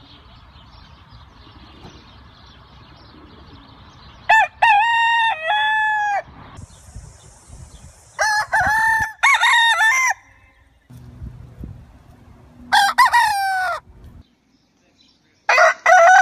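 Roosters crowing: four separate crows, each a loud cock-a-doodle-doo of several notes with the last one drawn out, with pauses between them. The first crow comes about four seconds in, after faint background noise.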